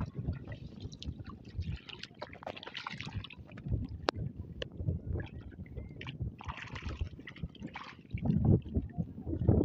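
Shallow river water sloshing and splashing in small irregular bursts, with scattered light clicks. A low wind rumble on the microphone comes in near the end.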